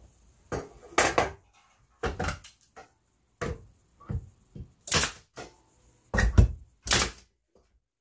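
Pneumatic brad nailer firing several times into oak slats, each shot a sharp clack with a short burst of air, mixed with knocks of the wood being set in place.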